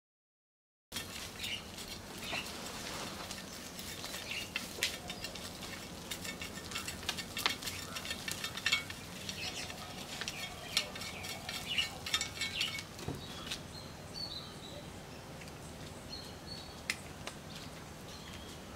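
A small garden hand fork raking soil out of a bonsai's root ball: rapid scratching and light clicks of the tines catching in the roots and loose soil. It begins about a second in and thins out after about 13 seconds.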